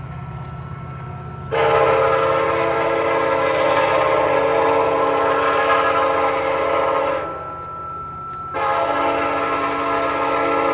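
Train horn sounding two long blasts, each a chord of several held tones, the second starting a little over a second after the first ends. Under them runs the train's steady low rumble.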